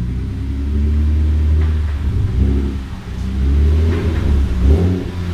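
Car engine running at low revs as the car is moved, easing off about three seconds in and then picking up again.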